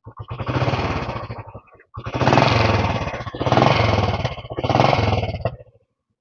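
Royal Enfield Bullet 500's single-cylinder engine being revved with the throttle four times in a row. The first rev lasts about a second and a half and the next three about a second each, dropping back after each.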